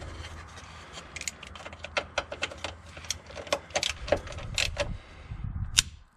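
Irregular metallic clicks and clinks of a socket, extension bar and ratchet as an engine-mount bolt is undone and spun out by hand, with one last louder click near the end.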